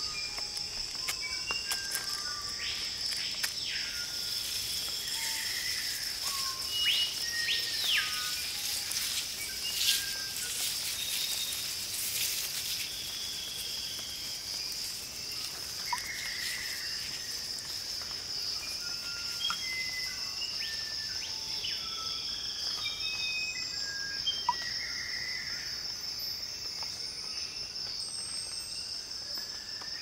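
Tropical rainforest ambience: a steady high-pitched insect drone throughout, with scattered bird calls on top, including a few falling whistles in the first eight seconds and short chirps and notes later.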